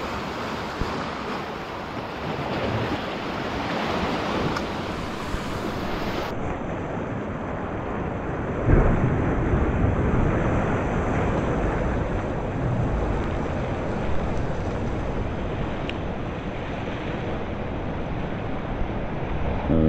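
Ocean waves surging and washing over a rocky reef shelf in a steady rush, with wind noise on the microphone; a louder rush comes nearly nine seconds in.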